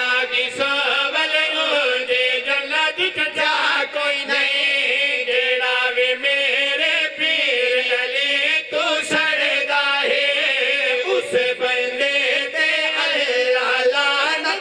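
A group of men chanting a devotional qasida refrain together in unison, with held, sung notes and no break.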